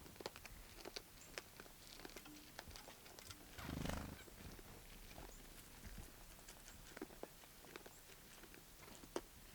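Soft scattered clicks and crunches of a young deer feeding on corn and stepping about, with one brief, louder low sound about four seconds in.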